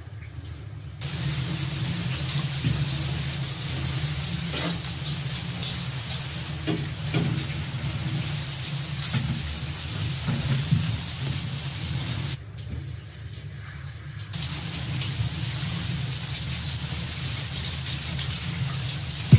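Shower running: water spraying from a handheld showerhead onto a person in the tub, a steady hiss that starts about a second in. It drops out for about two seconds a little past the middle, then comes back.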